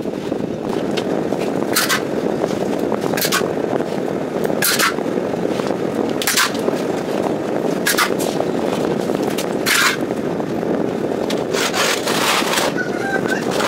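A steel plastering trowel scrapes skim-coat plaster across a rendered wall in short, sharp strokes, about one every second and a half, over a steady background noise.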